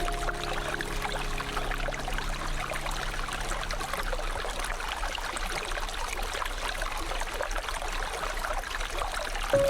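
Shallow river water flowing and trickling steadily over stones, an even, continuous babble.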